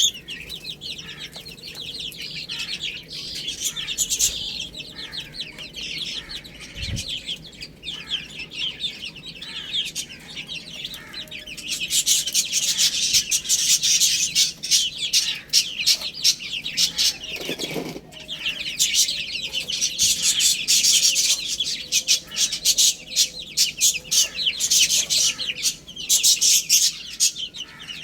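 A flock of young chicks peeping continuously: a dense chorus of short, high-pitched chirps that grows louder about halfway through.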